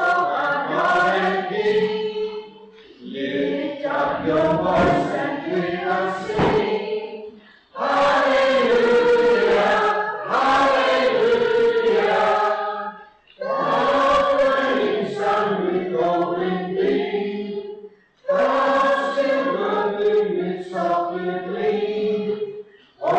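A group of voices, men and women together, singing a slow worship song in long phrases with short breaks between them.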